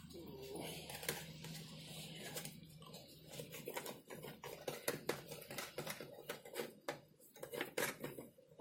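Irregular plastic clicks and taps from a new gasoline chainsaw being handled and its parts opened up by hand, growing busier about halfway through.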